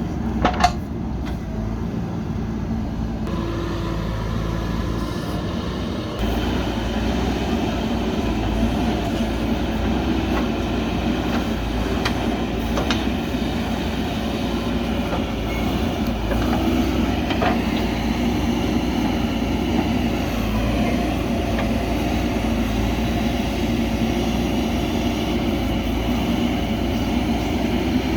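JCB backhoe loader's diesel engine running steadily under work, with a short sharp clank about half a second in. The engine gets louder about six seconds in.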